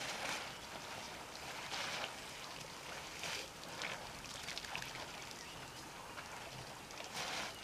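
Elephants drinking at a waterhole: water splashing and sloshing as trunks dip in and draw water, in irregular swells every second or two.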